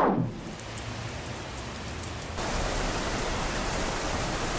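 A quick falling whoosh, then the steady hiss of heavy rain, which grows louder about two and a half seconds in.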